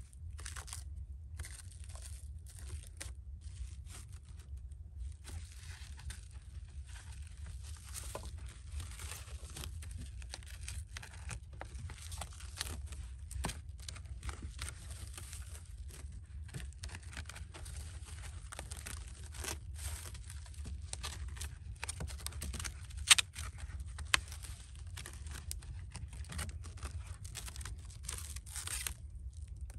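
Irregular crunching, scraping and tearing sounds over a steady low rumble, with one sharp knock and a smaller one a second after it.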